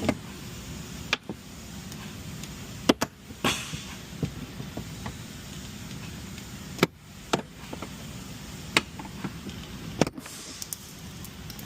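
Scattered sharp clicks and knocks, about a dozen spread unevenly, from prying at and handling the plastic master window switch housing in a Volkswagen door, over a steady low background hum.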